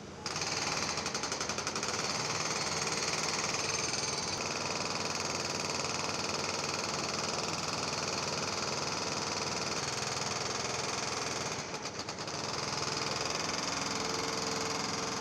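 Heavy construction machinery working on pavement: a steady engine-driven din with a fast rattling pulse, easing off briefly about twelve seconds in.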